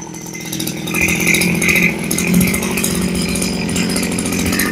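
Tanaka brush cutter engine running, revving up about a second in and held steady at high revs.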